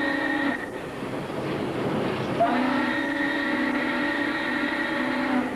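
Steam locomotive whistle blown from the cab by pulling the whistle cord: a steady multi-tone blast that ends about half a second in, then a long blast starting about two and a half seconds in and lasting almost to the end.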